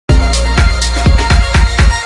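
Loud upbeat electronic intro music with a steady thumping beat, cutting off at the end.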